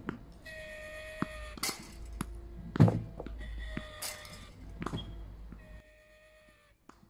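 Powershot Tennismash 2 tennis ball machine firing balls, a deep thunk at each launch, twice about two seconds apart. Between shots there is a steady whine that stops near the end.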